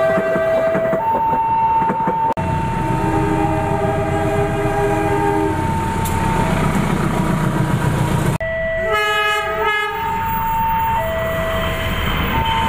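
Horns of KAI GE diesel-electric locomotives (CC 201 and CC 204 classes) sounding long blasts of the Semboyan 35 signal, the driver's horn signal given at departure and on the run. The horn notes are held, sometimes as a chord, over the rumble and wheel clatter of passing trains. The sound cuts abruptly twice, about two seconds in and again near the middle, as one train's horn gives way to another's.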